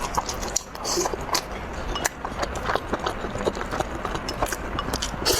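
Close-miked eating sounds: chewing and wet mouth smacks, an irregular run of short crunches and clicks.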